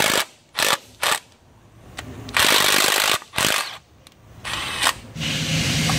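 Cordless drill with a socket spinning rocker arm bolts loose in short bursts: three quick blips in the first second, a longer run a little after two seconds, another brief one, then a steadier run near the end. The bolts are being backed off a little at a time so the long rocker arm comes down evenly.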